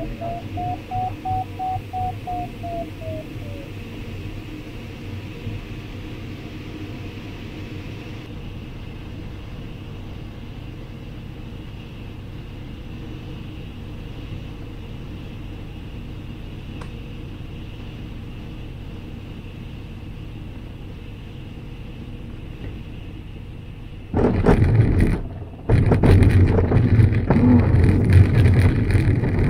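Steady rush of airflow around a glider's canopy on final approach, then, in the last five seconds, the glider's wheel touches down on grass: a sudden loud rumble, a short lull a second later as it briefly lifts, then continuous rumbling as it rolls over the grass field.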